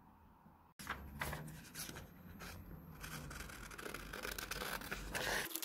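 Scissors snipping through a sheet of paper pattern, with the paper crackling and rustling as it is held and turned; it starts suddenly less than a second in.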